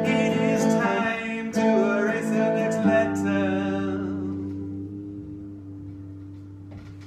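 Electric guitar played with a man singing, then a chord struck about three seconds in and left to ring, fading slowly away.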